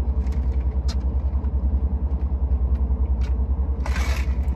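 Low, steady rumble of the Rolls-Royce idling, heard from inside its cabin, with a few faint clicks. About four seconds in comes a brief rustling clatter as a plastic drink cup is tipped up.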